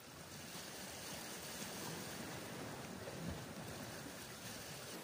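Steady wash of small sea waves against a rocky shoreline.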